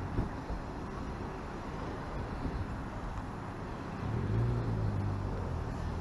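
Street traffic heard through an action camera's built-in microphone: a steady wash of road noise and low rumble, with a low engine hum swelling about four seconds in as a vehicle passes.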